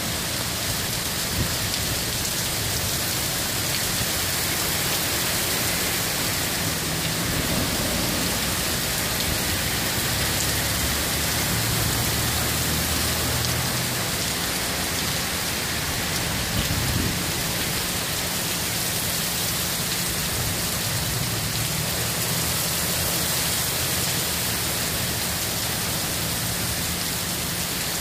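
Heavy rain pouring down steadily in a downpour, with a low rumble that swells and fades beneath it a few times.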